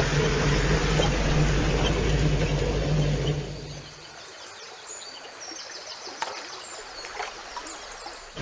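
A loud, steady low drone with a hum fades out after about three and a half seconds, leaving quieter forest ambience with birds chirping and a few sharp clicks. The drone cuts back in abruptly at the end.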